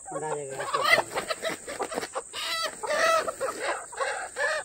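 Live country (desi) chickens squawking and clucking in short, repeated, wavering calls while they are held and handled.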